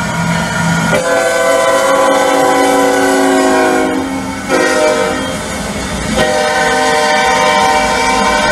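Several-note diesel locomotive horn sounded by an HO scale EMD GP30 model train, with a low rumble underneath. A long blast starts about a second in, a shorter one follows after a brief break near four seconds, and a third long blast begins just after six seconds.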